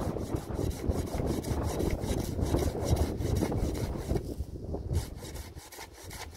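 A hand saw cutting through wood with quick, regular back-and-forth strokes, easing off near the end.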